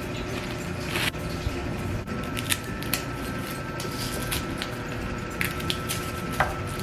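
Scattered kitchen clicks and knocks from food preparation, over a steady background hum.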